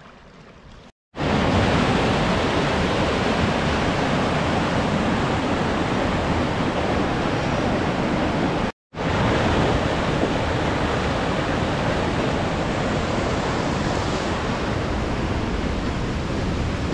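Waterfall and river rapids giving a loud, steady rush of water. The sound drops out abruptly twice, about a second in and again near the middle, at edit cuts.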